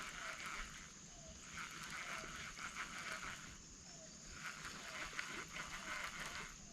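Outdoor wildlife chorus: a buzzing insect chorus swelling and fading in waves every couple of seconds, with a short, falling call repeating about once a second and a thin, steady high whine beneath.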